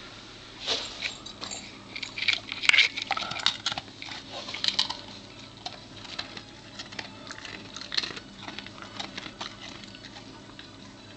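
Siberian husky eating a biscuit off the carpet: irregular crisp crunching and snuffling, busiest in the first five seconds, then sparser and fainter.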